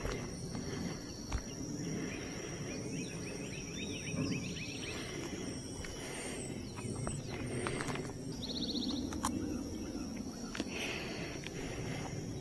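Outdoor ambience: a steady high insect whine with birds chirping and three brief buzzy trills, over a low rumble and a few faint knocks.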